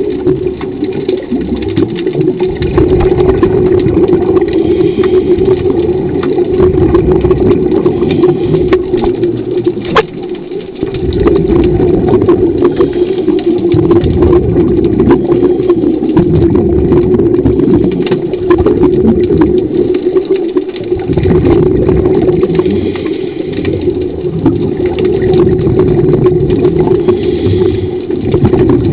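Underwater diving scooter's electric motor running with a steady hum over a rushing low rumble of water, and a single sharp click about ten seconds in.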